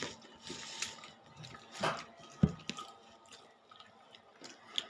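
A person chewing food, with soft wet mouth sounds and scattered small clicks, the sharpest about halfway through.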